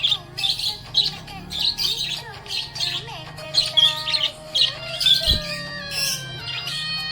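Budgerigars chirping in quick, repeated short calls several times a second, mixed with gliding warbled whistles.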